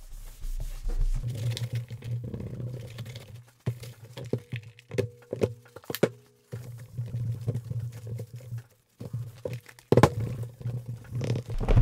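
A paper towel is rubbed and scrubbed over the aluminium case of a PowerBook G4, with the paper crinkling. There are sharp knocks and clicks as the laptop is handled and turned over on a silicone work mat, a cluster of them a few seconds in and a strong one near the end.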